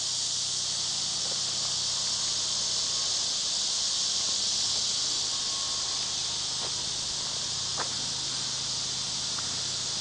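Steady high-pitched buzzing chorus of insects, with a faint low hum underneath.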